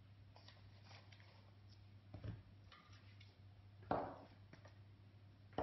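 Metal bench scraper pushed down through a block of brioche dough, knocking once on the countertop about four seconds in, after a softer thud of the dough being handled. A faint low hum runs underneath.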